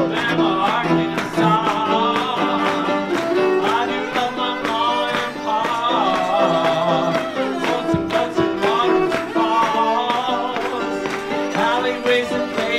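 A man singing a ballad to his own grand piano accompaniment, with a cello playing alongside.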